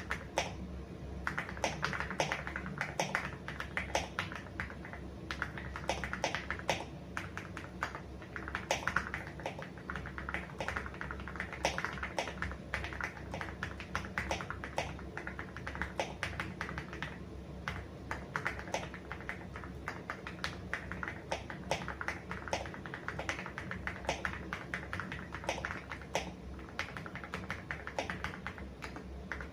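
Typing on an Aula F75 mechanical keyboard fitted with Gateron Creamy Yellow switches: a continuous, irregular run of keystrokes, several a second.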